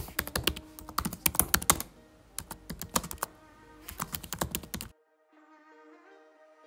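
Keyboard typing clicks in three quick bursts over soft background music, stopping about five seconds in and leaving the music alone.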